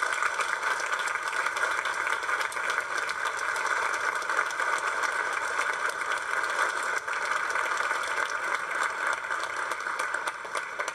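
Theatre audience applauding: dense, steady clapping that begins to die away near the end.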